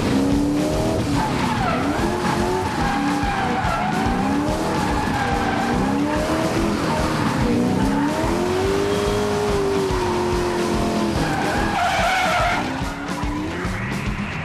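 Procharger-supercharged LS2 V8 in a Nissan Skyline drift car revving up and down hard through a drift, with the tyres skidding. The engine note is held high for a couple of seconds past the middle and dips briefly near the end.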